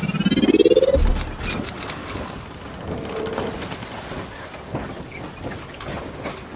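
Logo-reveal sound effect: a rising whoosh sweeps up into a low boom about a second in, followed by a crackling, shimmering wash with scattered clicks that slowly dies away.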